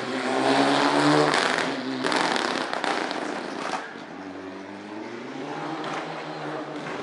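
Rally car engine revving hard as it accelerates out of a corner, with sharp exhaust pops and bangs over the first few seconds. The engine note then fades as the car pulls away, still rising as it works up through the gears.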